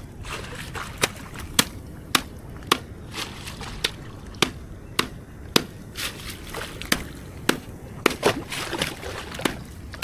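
Water sloshing and splashing as someone wades through shallow water, with a sharp knock about twice a second in step with the wading.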